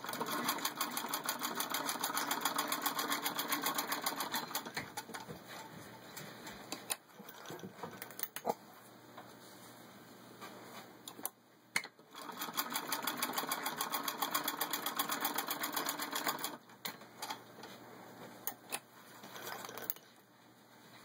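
Antique 1917 Singer 66-1 sewing machine, hand-cranked, stitching through six layers of denim with a rapid, even clatter: one run of about seven seconds and a second of about four. Between and after the runs come quieter clicks and the handling of the work.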